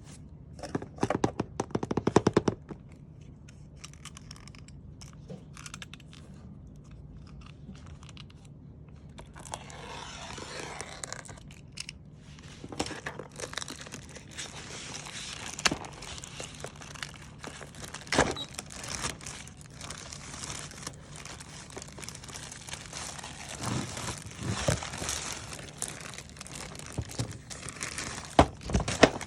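Packaging being opened by hand: a quick run of sharp clicks about a second in, then from about ten seconds on, steady crinkling and tearing of wrapping broken by scattered sharp cracks.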